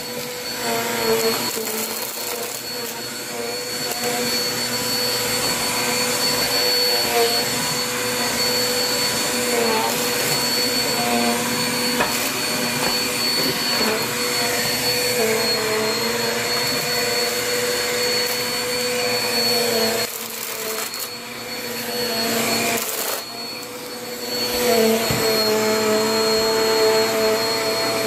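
Upright vacuum cleaner running steadily while it is pushed back and forth over a rug to pick up confetti and paper scraps. Its motor tone sags slightly in pitch now and then as the head is worked, and the sound drops briefly twice about two-thirds of the way through.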